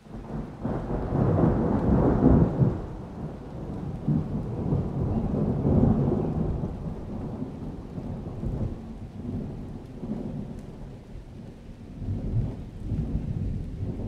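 A thunderclap rolls in about half a second in, loudest around two seconds. It rumbles on, slowly dying away, and swells again near the end, over light rain.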